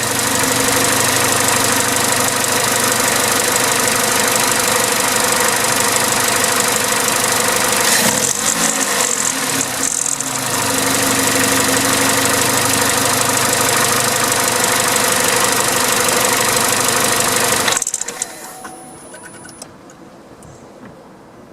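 Vauxhall/Opel A14XER 1.4-litre four-cylinder petrol engine running with its timing-chain rattle, with a brief dip in level around 8 to 10 seconds in. It is switched off about 18 seconds in.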